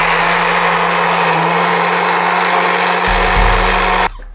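Countertop blender running at full speed, chopping neem leaves in alcohol with a steady motor hum under the whir. About four seconds in it is switched off and the motor winds down.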